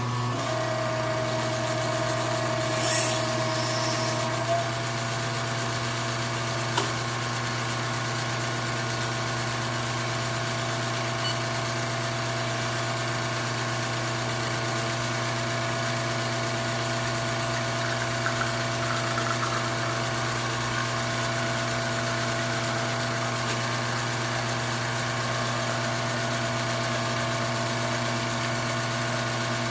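Espresso machine pump switching on and running with a steady, even hum, as during a shot extraction. There is a brief hiss about three seconds in.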